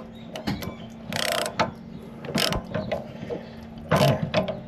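Socket ratchet clicking in uneven bursts as it tightens a new anode rod into an RV water heater tank. A steady faint hum runs underneath.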